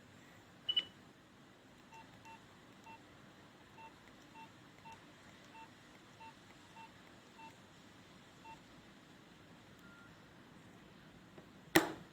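Nokia 2600 classic keypad beeps: about a dozen short, identical single-pitch beeps at an uneven pace as its buttons are pressed. There is a click about a second in and a loud knock near the end.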